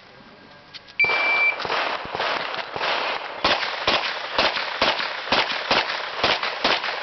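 An electronic shot timer gives one short high beep as the start signal, and a semi-automatic pistol then fires a rapid string of shots, about two to three a second.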